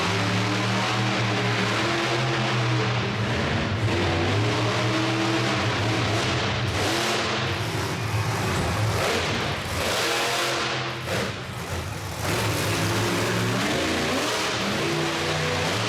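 Monster truck engines running loud and revving repeatedly, with several sharp rises in the noise partway through.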